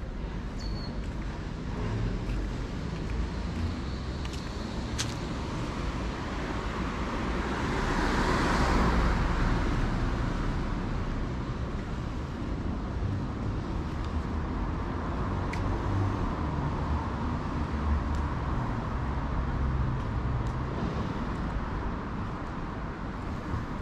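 Road traffic: cars passing, one growing loudest and fading away about eight to nine seconds in, with a weaker pass later.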